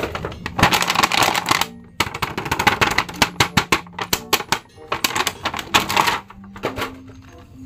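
Clear plastic blister packaging of a toy action figure crinkling and crackling as it is handled, in three bursts that die down near the end, with faint music underneath.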